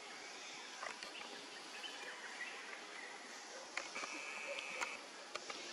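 Outdoor ambience: a steady hiss with scattered small chirps and clicks, and one flat, high-pitched call held for about a second around four seconds in.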